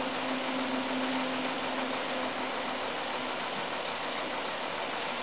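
Steady background hiss of room and recording noise, with a faint low hum that fades out about two and a half seconds in.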